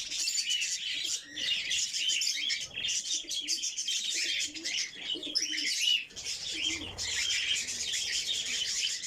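A flock of pet cage birds chirping and chattering nonstop, many high calls overlapping, with lower calls now and then beneath them.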